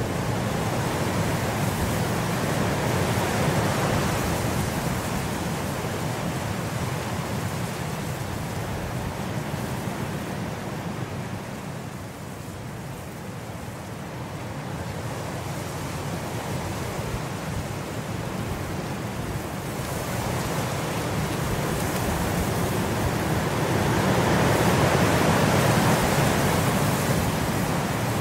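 Steady rain ambience: an even hiss of rain that slowly swells and fades, louder near the start and again near the end.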